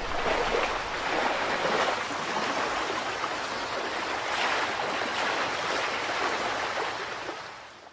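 Water washing like gentle surf, a steady rushing with a few soft swells, fading out near the end.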